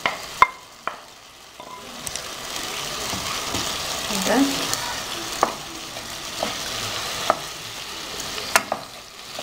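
Diced potatoes sizzling in a pan of frying eggplant and tomato sauce as a spatula stirs them in. A few sharp knocks come near the start, then the sizzle builds, with the spatula scraping and tapping against the pan.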